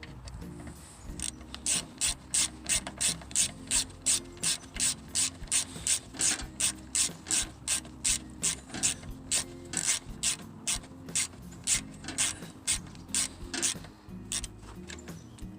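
Hand ratchet wrench being worked in steady strokes, clicking about three times a second, stopping about a second before the end.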